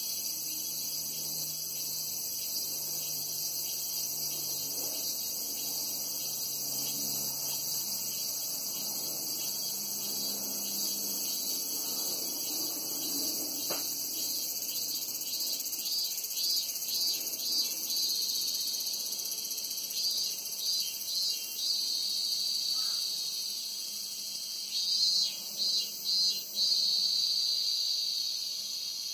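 Cicadas singing: a steady, high-pitched chorus throughout. About halfway in, a nearer cicada joins with a loud pulsing call in repeated groups of pulses, loudest near the end. A faint low drone of a distant helicopter fades out in the first part.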